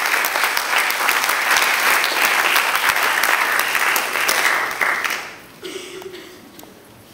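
An audience applauding. The applause stops fairly abruptly about five seconds in, leaving only a few scattered claps.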